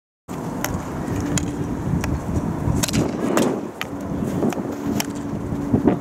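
Field hockey stick striking a hard ball on artificial turf: several sharp cracks spaced irregularly over a steady faint hum and open-air background noise.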